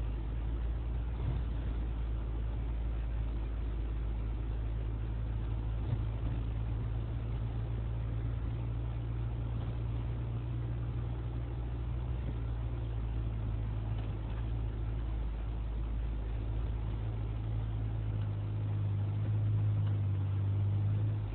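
Jeep Wrangler JK's engine running steadily at low trail speed, a constant low drone with tyre and road noise, growing louder and slightly higher near the end as it picks up. A single knock about six seconds in.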